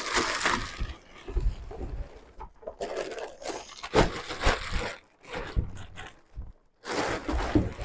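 Clear plastic wrapping rustling and crinkling against a cardboard box as goalie leg pads are pulled out of it, in irregular bursts with scraping and a few dull bumps.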